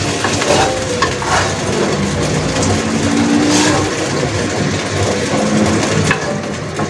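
Hot oil sizzling in a granite-coated wok as stir-fried beef slices are stirred and scooped out with a wooden spatula. A few scrapes of the spatula against the pan stand out over a steady low rumble.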